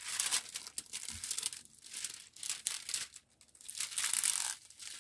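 Irregular crinkling and rustling of a stiff diamond painting canvas and its plastic packaging being handled, with a short pause about three seconds in.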